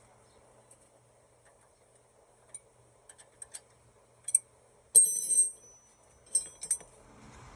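Metal hand tools clinking against steel parts while a tie rod is tightened: a few light ticks, then a louder ringing clink about five seconds in, and a couple more clinks near the end.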